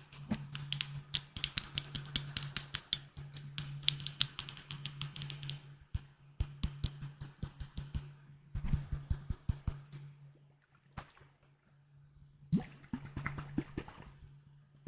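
Glass bottles tapped rapidly: a dense run of quick, sharp taps that thins to scattered taps about six seconds in, stops briefly, then picks up again near the end.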